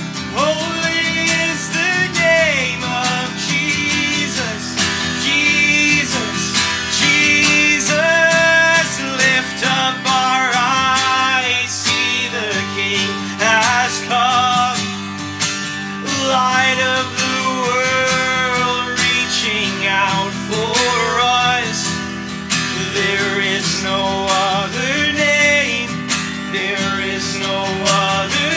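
Acoustic guitar strummed steadily, accompanying men's voices singing a slow worship song.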